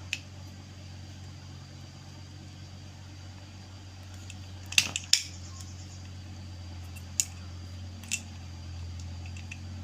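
Light clicks and knocks of small gas-stove igniter parts being handled and pushed into their slot, two close together about halfway through, over a steady low hum.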